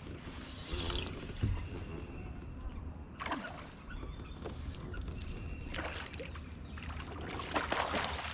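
A hooked fish thrashing and splashing at the water's surface beside a kayak, in several short bursts, the loudest and longest near the end.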